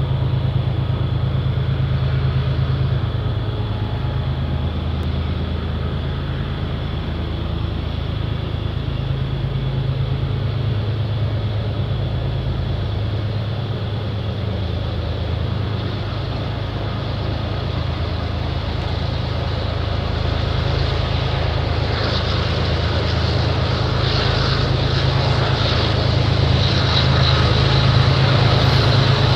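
BNSF freight train's three GE ES44 diesel locomotives working hard up a steep grade: a deep, steady engine drone that grows louder as the train approaches. Over it runs a high-pitched steel wheel flange squeal from the sharp curves, which grows stronger in the last third.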